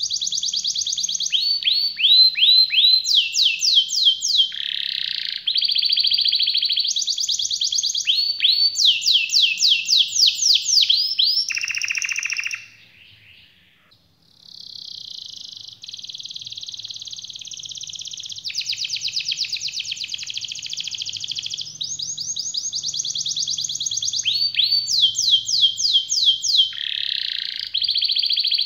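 Red-factor domestic canary singing a long song of rapid rolling trills. It switches from one fast repeated note to another every second or two, with a short pause about halfway through.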